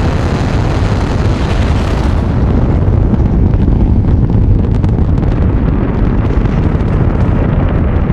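Saturn V rocket's five F-1 first-stage engines in flight: a loud, continuous low rumble with crackling. About two seconds in, the hiss on top fades and separate crackles stand out more.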